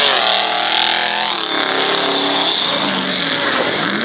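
Mud-bog truck's engine revving hard as it ploughs through the mud pit, its note falling and climbing with the throttle: a drop about a second and a half in, then rising and falling again.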